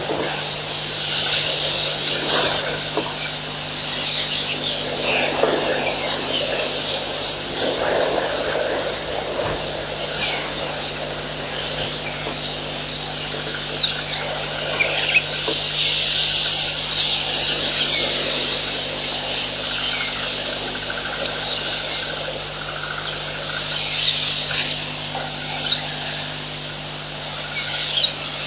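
Many birds chirping and calling in short, overlapping calls, over a steady low hum.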